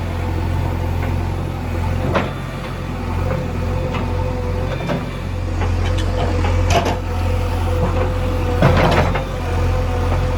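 Heavy diesel engine running steadily under load, with a few sharp metallic knocks, the loudest cluster near the end.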